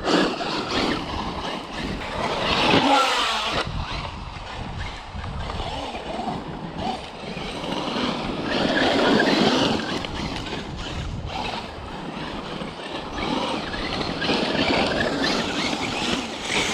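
Traxxas Unlimited Desert Racer RC truck being driven over loose dirt: its electric motor whines up and down with the throttle, and the tyres churn and spray dirt, the sound swelling and fading as the truck passes.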